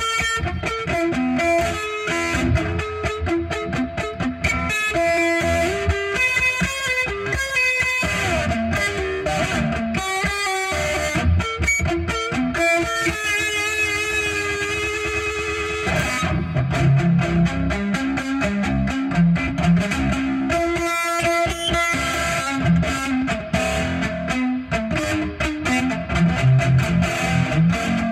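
Electric guitar playing an instrumental piece, a melodic line of single and sustained notes. The low end grows fuller about halfway through.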